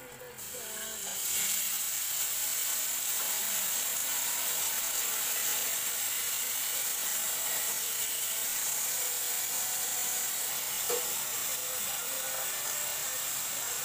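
Water sizzling and hissing in a hot pan around dumplings as they steam under a glass lid. The hiss rises about a second in and then holds steady.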